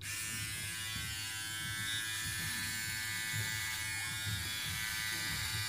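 Philips OneBlade electric shaver buzzing steadily as it is run over neck stubble, dry, with no shaving gel.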